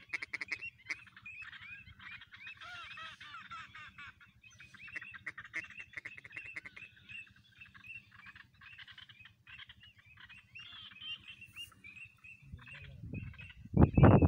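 Ducks calling, many at once: a dense, rapid run of short quacking and nasal calls with brief gaps. Near the end a loud low rumble of noise rises over the calls.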